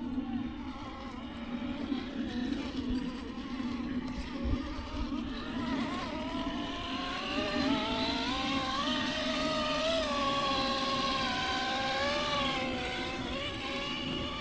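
Electric motor and gearbox of an RC rock crawler whining. From about six seconds in the pitch rises and falls with the throttle as the truck crawls.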